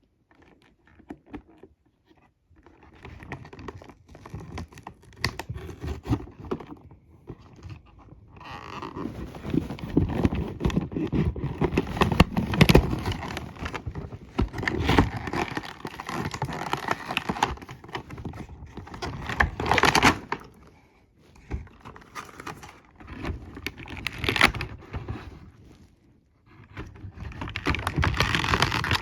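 Handling noise from a small toy being turned over in the hands: irregular clicks, taps and rustling in bursts, with short pauses.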